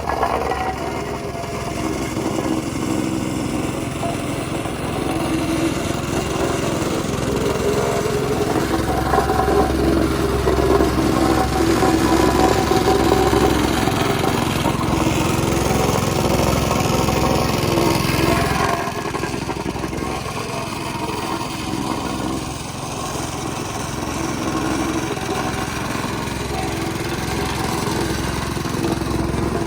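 Small engine running steadily on a pothole repair machine, with its level dipping slightly about two-thirds of the way through.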